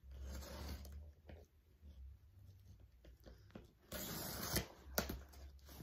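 Cardboard shipping box being worked open by hand: scratchy rustling and tearing of tape and cardboard. There is a louder tearing burst about four seconds in and a sharp click just after.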